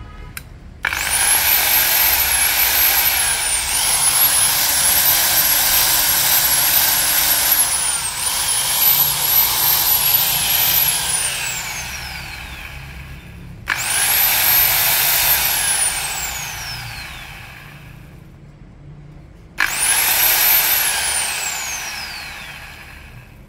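Makita electric belt sander with variable speed, switched on three times. Each time a high motor whine rises quickly to speed and then falls away as the motor coasts down after release. During the first and longest run the pitch wavers and dips as the speed setting is changed.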